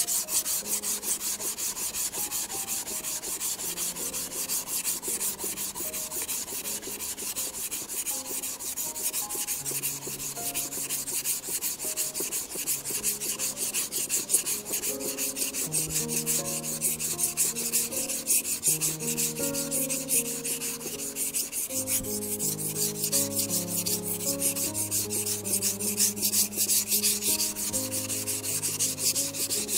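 Steel kitchen knife blade (a warikomi santoku) scraped in rapid back-and-forth strokes on a wet, muddy #400 whetstone: the polishing and edge-setting stage that refines the scratches left by the coarser stone.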